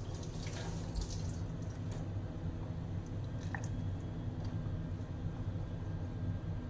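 Chunks of radish dropped into a saucepan of water with carrots, making small splashes and drips over a steady low hum.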